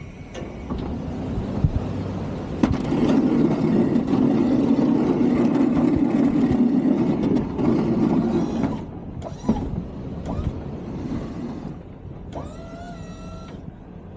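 Snow-plow truck running and working, loudest for several seconds in the middle. Near the end comes a short electric-motor whine that rises and then holds steady.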